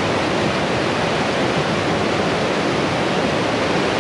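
Fast mountain river rushing over boulders in whitewater rapids: a loud, steady rush of water.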